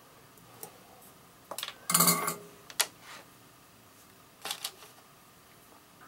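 Small metal parts clicking and clinking as bullet connectors and the wire are handled in a metal clamp. The loudest, a quick cluster of clinks, comes about two seconds in, followed by a sharp click and then a pair of clicks about four and a half seconds in.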